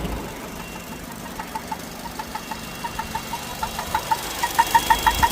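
Vauxhall Meriva 1.4 engine running warm, with a weird noise over its steady hum: rapid, uneven high chirps of one pitch that begin about a second and a half in and grow louder. The noise appears only once the engine is warmed up.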